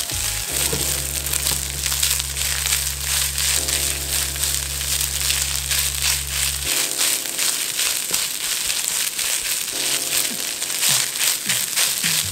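Spatula stirring and scraping egg fried rice around a hot nonstick wok: quick rustling, scraping strokes over a steady sizzle.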